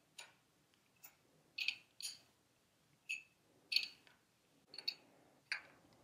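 Faint metallic clicks, some in quick pairs, from a 19 mm wrench working the YSS preload-adjuster top cap down onto a fork tube, snugging it to seat rather than tightening it hard.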